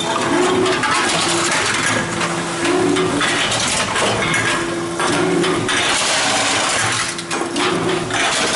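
Tomra reverse vending machine taking in cans one after another: its motor runs in short spells about every one and a half to two seconds, with metal clatter of the cans going through.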